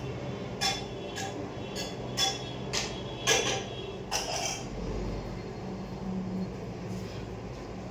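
Kitchen utensils clinking and knocking off to one side, about seven short knocks in the first four seconds, over a steady low hum.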